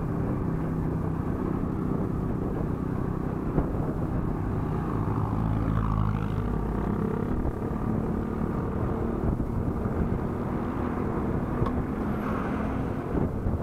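Motorcycle engine running steadily as the bike rides along a road, heard from a camera mounted on it, with road and wind noise. A deeper rumble swells about five to seven seconds in.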